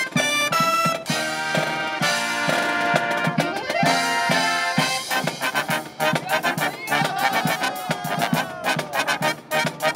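Live marching brass band playing: trumpets, clarinets, saxophones and sousaphone over a snare drum. From about six seconds in the drums set a quick, even beat, and a falling slide runs through the melody near the middle.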